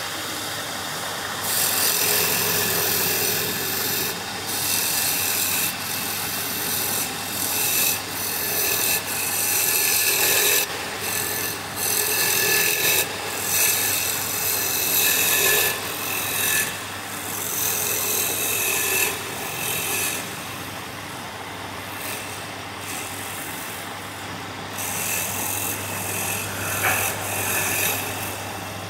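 Wood lathe running with a steady motor hum while a turning tool scrapes the spinning wood in repeated passes of a second or two each. The cutting eases off for a few seconds about two-thirds of the way through, then starts again.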